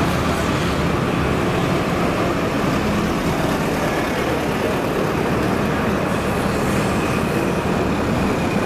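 Steady rumble of road traffic, an even wash of noise with no single sound standing out.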